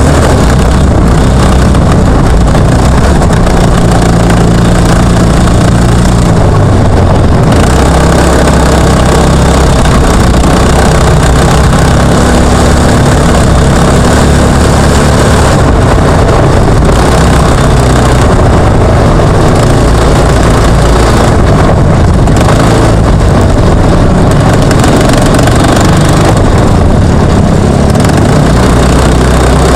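Jr1 trophy kart's engine running loud under racing throttle, its pitch dropping and rising again several times as the driver lifts off and gets back on the gas, heard close from the onboard camera.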